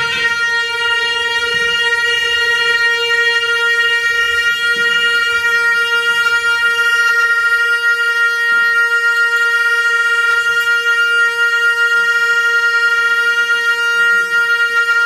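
Two gyalings, Tibetan double-reed oboes, sounding one long steady note together, held unchanged with no breaks.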